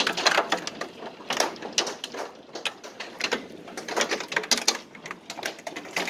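Hail falling hard onto a concrete patio and yard: a dense, irregular clatter of hailstones striking and bouncing, coming in heavier bursts and easing between them.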